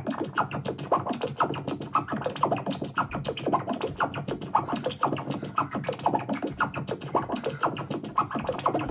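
Long electronic comedy sound effect, a rapid run of short squelchy, bouncy blips at several a second, likened to a slime bouncing.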